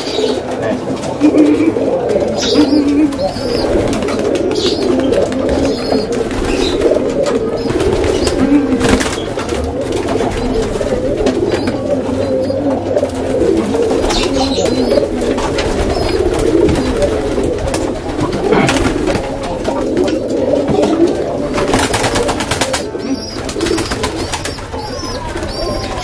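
Domestic pigeons cooing continuously, many birds at once, with wing flaps now and then as birds are handled and let go.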